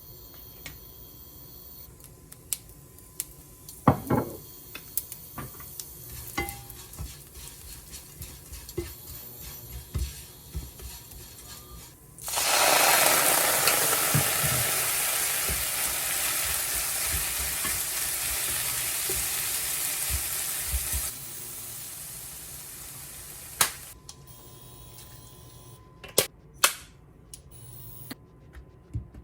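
Food frying in a hot oiled pan: after some light clicks and knocks of kitchen utensils, a loud sizzle starts suddenly about twelve seconds in, eases down over about nine seconds, then drops off, with a few sharp knocks near the end.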